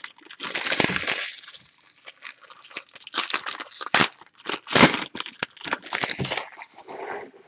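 Foil wrappers of baseball card packs crinkling and crackling as they are pulled open by hand, in irregular bursts with short clicks.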